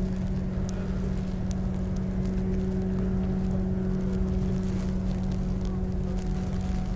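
A steady low engine hum holding one pitch, over low rumbling noise.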